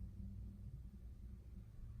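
Quiet room tone: a low steady hum and nothing else, with no lock motor or click.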